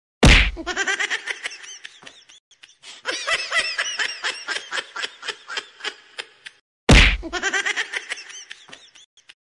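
Laughter, most likely a dubbed-in laugh sound effect: rapid high-pitched giggling pulses, about five a second. A loud sharp hit sounds just after the start and again about seven seconds in, each followed by a fresh burst of laughing.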